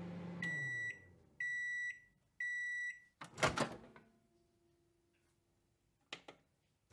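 Microwave oven finishing its cycle: its running hum winds down, then three high beeps. About three and a half seconds in the door pops open with a sharp clunk, and a couple of faint clicks follow near the end.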